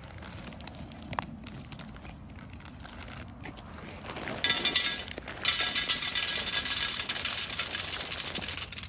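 Loud crinkling, crackling rustle of dry cat food being served. It starts about four and a half seconds in, breaks off briefly, then runs on and stops abruptly near the end.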